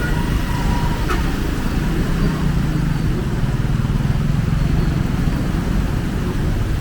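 Heavy rain falling steadily in a dense, even hiss, with a motor vehicle's low engine hum strongest through the middle.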